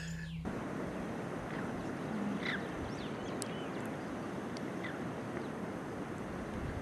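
Outdoor ambience: a steady rushing noise, with a few faint, short bird chirps scattered through it.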